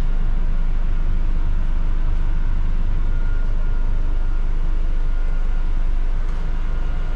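Steady drone in the upper deck of a Scania N250UD double-decker bus standing with its engine running: the idling engine and the saloon ventilation blowers together, with a faint steady whine above the low hum.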